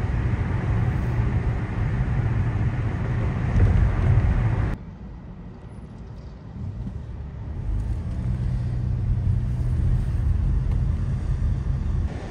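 Vehicle running with steady low road rumble and hiss. It cuts off suddenly about five seconds in to a quieter stretch, then builds back to a similar rumble.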